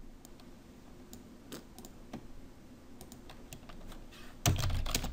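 Computer keyboard keys and mouse clicks, sparse and faint, with a louder cluster of clicks and knocks near the end.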